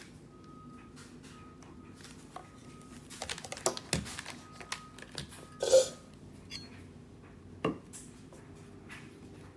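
Packaging and parts of a boxed hand blender set being handled while the box is opened: rustling and light plastic clattering, with a sharp knock about six seconds in and another near eight seconds.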